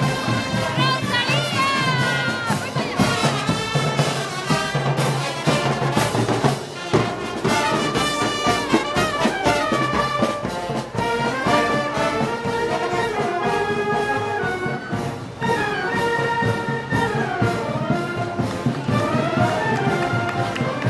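Brass band playing festival march music, brass melody over a steady drum beat.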